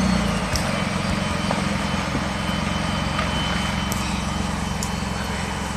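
Off-road 4x4's engine running steadily at low revs, with no revving.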